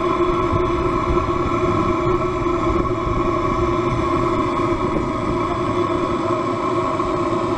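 Scale model steam engine running steadily, a continuous even mechanical hum with a steady hiss and a couple of held tones over it.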